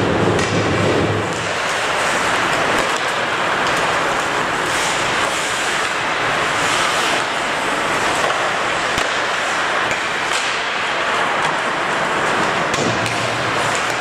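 Ice hockey play in an arena: skate blades scraping the ice, with sharp clacks of sticks and puck scattered through the steady scraping.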